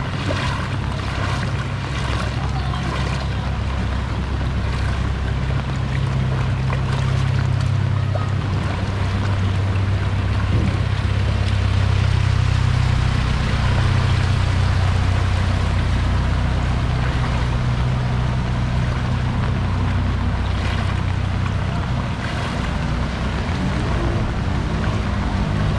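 Floodwater sloshing and splashing as someone wades through it, over a steady low engine hum.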